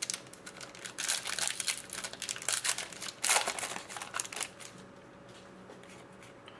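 Crinkling and rustling of plastic card-pack wrapping and trading cards being handled, busiest in the first four seconds and then fainter.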